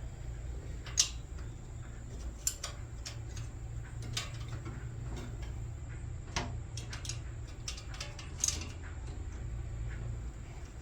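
Scattered light metallic clicks and clinks of hand tools working on exhaust header bolts, over a steady low hum.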